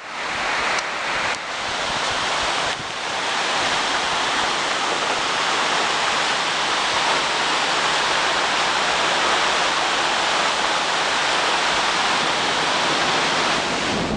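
Very heavy rain pouring down in a dense, steady hiss.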